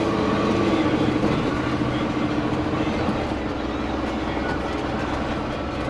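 Diesel truck's engine and road noise while driving, a steady rumble.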